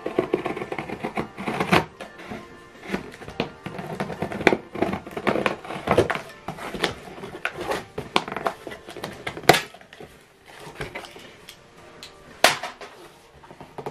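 Scissors snipping through packing tape on a cardboard printer box, then the box's cardboard flaps being pulled open: a run of irregular clicks, snips and scrapes. Background music plays under it.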